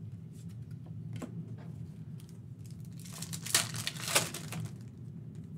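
Foil wrapper of an NBA Hoops trading-card pack being torn open and crinkled, a second-and-a-half burst of crackling about three seconds in with two sharp peaks. Before it, light clicks of cards being handled.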